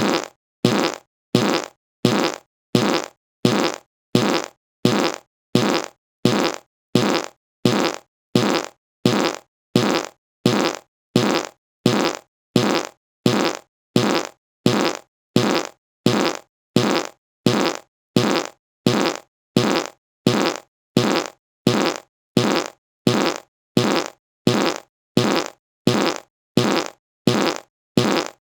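A short fart sound repeated over and over at an even pace, about one and a half times a second. Each one starts loud and tails off quickly, with silence between.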